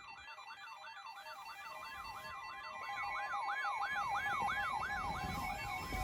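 Electronic siren yelping, its pitch sweeping up and down about three times a second over a few steady tones, growing gradually louder.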